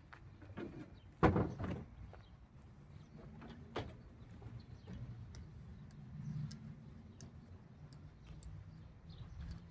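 A sharp knock about a second in and a smaller one a few seconds later, with scattered light clicks over a faint low hum.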